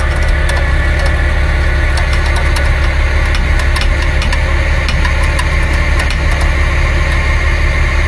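Tow truck engine running steadily with a low drone, with scattered light clicks over it.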